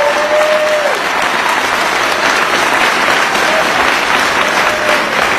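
A large audience applauding, loud and steady, at the end of a sung performance; a last held note dies away about a second in.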